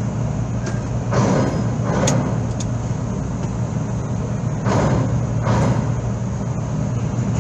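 Cars driving off a car ferry onto the steel ramp, their front and then rear wheels rumbling over the ramp plates in pairs: once about a second in and again near five seconds. A steady low engine hum runs underneath.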